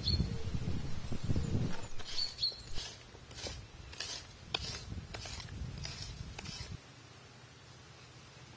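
A knife blade striking the ground and plants in a series of sharp chops, roughly two a second, after a low rumble. A bird chirps twice.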